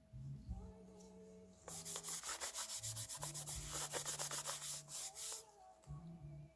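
Quick, rhythmic rubbing strokes, about six a second for nearly four seconds, beginning about a second and a half in, over quiet music.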